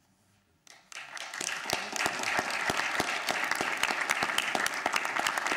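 An audience breaks into applause about a second in, after a moment of near silence, and it quickly swells into steady clapping.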